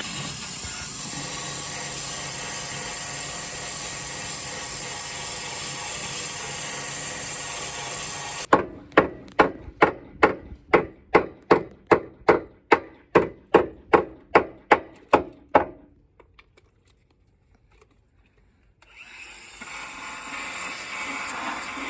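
A power tool runs steadily on the car's rusty wheel-arch metal, then stops for a run of about sixteen sharp, evenly spaced knocks, about two a second. After a short pause the tool starts up again near the end.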